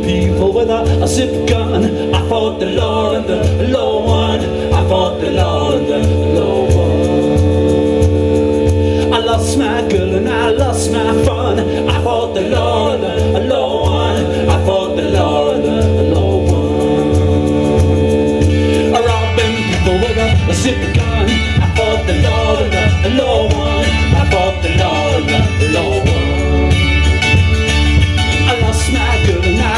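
Live folk-punk band playing an instrumental passage: bagpipes over a strummed mandolin, a cajon and a double bass keeping a steady beat. A long held drone sounds under the tune until about two-thirds of the way through, when it stops and the texture changes.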